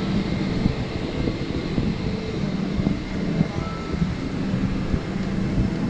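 Steady hum inside a parked Boeing 777-300ER's cabin, with low murmur from passengers moving along the aisle and rustling as the handheld camera brushes past bags.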